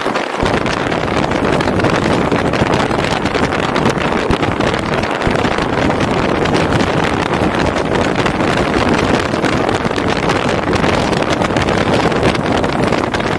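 Steady rush of wind and road noise from a car driving at speed, with wind buffeting the microphone.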